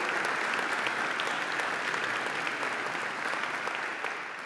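An audience applauding: dense, even clapping that starts to die away near the end.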